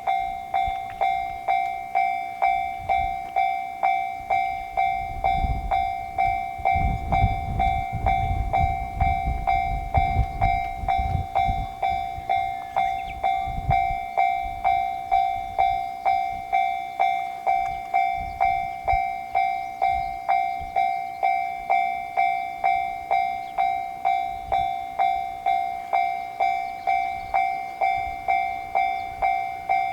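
Japanese level-crossing warning bell ringing its steady "kan-kan" at a little under two strikes a second. A JR Sobu Line train passes with a low running noise from about five to twelve seconds in.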